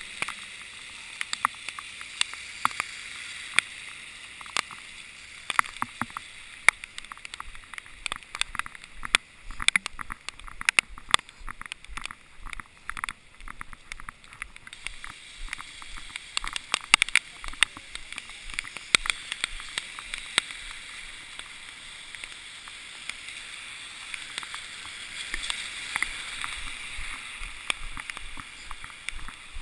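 Raindrops tapping irregularly on the camera body and microphone, many sharp ticks over a steady hiss.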